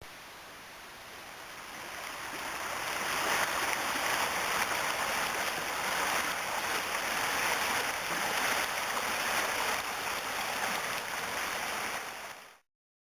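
Mountain trout creek's flowing water, a steady rush that fades up over the first few seconds and then cuts off abruptly near the end.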